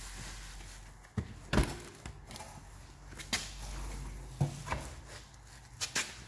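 Scattered knocks and clatter of scooter parts being handled during a strip-down, the loudest about one and a half seconds in, over a faint steady hum.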